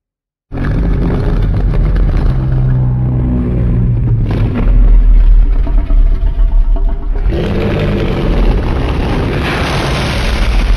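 A Godzilla monster sound effect: a loud, low, grinding rumble that starts suddenly after half a second of silence, changes about four seconds in, and swells harsher and brighter about seven seconds in.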